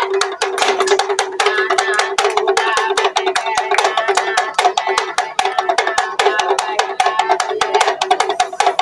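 Music with a fast, even clicking percussion beat over a sustained note and a wavering melody.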